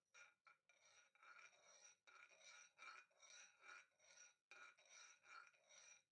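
Faint rhythmic scraping and ringing of a spoon stirring a drink in a glass, about two to three strokes a second.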